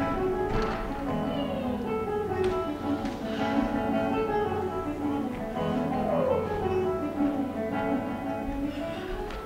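Instrumental music playing during a stage blackout, fading down near the end.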